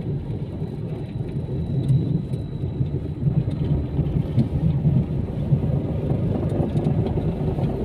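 A car driving slowly, with a steady low rumble of engine and road noise.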